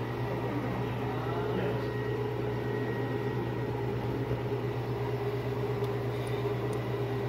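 Chevrolet Orlando 1.6 four-cylinder engine running steadily at idle with its valve cover removed, a constant even mechanical hum.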